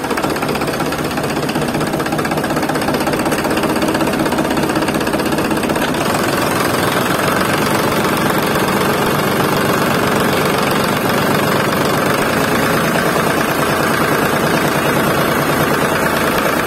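Tractor engine running steadily with a fast knocking beat; its tone shifts a little about six seconds in.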